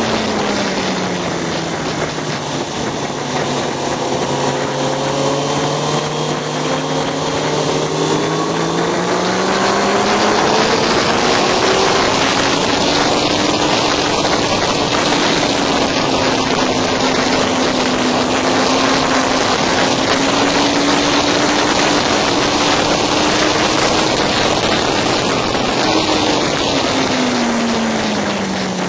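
Motorcycle engine under way on a race track, with heavy wind rush over the microphone. Its pitch falls over the first two seconds as the rider slows, climbs again about eight to ten seconds in, holds fairly steady, then drops again near the end.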